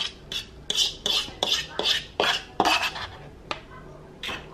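A metal utensil scraping and tapping against a dish in short, quick strokes, about two or three a second, as shredded cheese is scooped out onto a homemade pizza.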